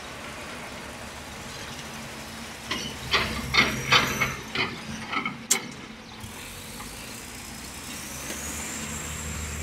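Several sharp knocks and clatters between about three and five and a half seconds in, as parts such as a spin-on fuel filter are handled at a diesel generator engine. Under them runs a steady low machinery hum, and near the end a high whine rises and then holds.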